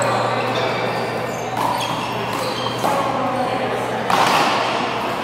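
Echoing background of an indoor handball court: indistinct voices over a steady low hum, with a few short, louder sounds about one and a half, three and four seconds in, the last the loudest.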